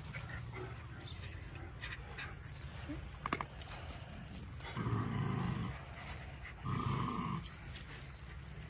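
A dog making two short, low-pitched sounds about two seconds apart, each lasting under a second.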